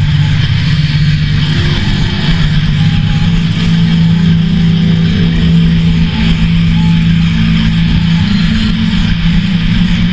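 Experimental noise drone: a loud, steady low hum under a dense wash of hiss, with no beat or breaks.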